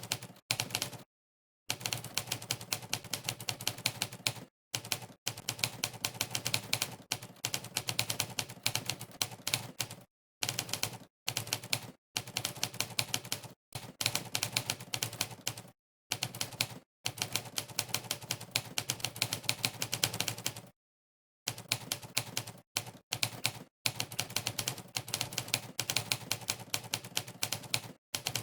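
Typing-test typewriter sound effect, one clack per keystroke, in fast runs of many clacks a second. The runs are broken by short gaps of dead silence, about every one to three seconds.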